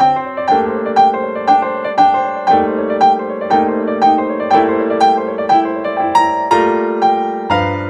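Background piano music: a steady run of struck notes, about two a second, over held chords that change a few times.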